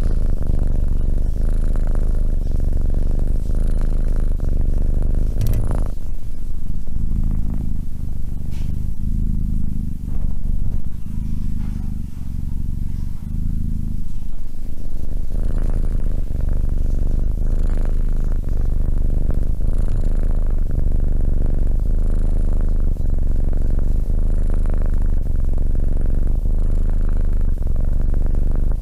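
Tabby kitten purring loudly into a close microphone, a continuous low rumble. A single sharp click about five seconds in.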